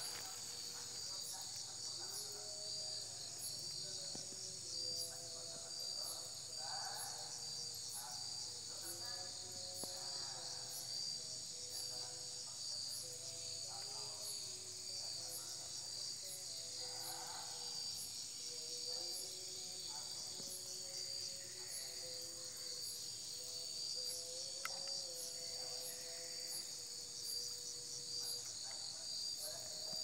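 Night chorus of crickets and other insects: a steady, dense, high-pitched chirring with a fast pulsing texture.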